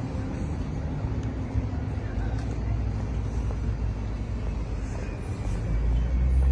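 Road traffic rumble, growing louder near the end as a vehicle draws close.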